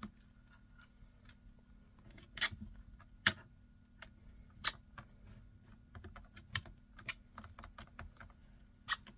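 Irregular sharp clicks and taps, a dozen or so with uneven gaps, typical of an African grey parrot's beak nibbling and clicking on an object.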